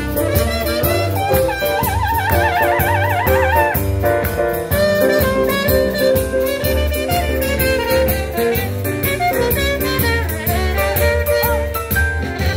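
Swing jazz music: a wind-instrument lead plays a melody with wide vibrato over walking bass, piano and a steady cymbal beat.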